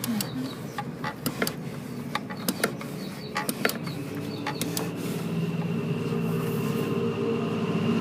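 Scattered sharp metallic clicks and taps of hand tools, then a steady motor hum that builds up over the second half.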